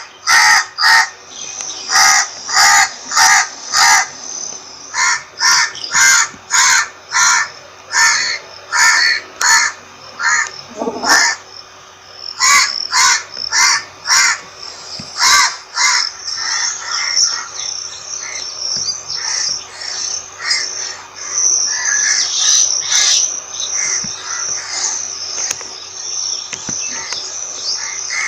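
Crows cawing: a run of short harsh caws, about two a second, for the first sixteen seconds or so, after which the calls crowd together into a denser, overlapping chorus.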